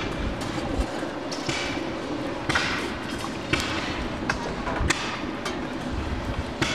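Irregular knocks and clinks of metal farrier's tools around a coal forge and anvil, roughly one a second over a steady low background.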